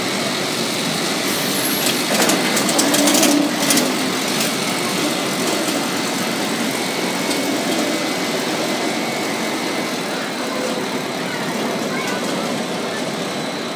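Steel roller coaster train running on its track and climbing the vertical lift hill: a steady mechanical rumble, with a louder burst of rapid rattling clicks about two seconds in.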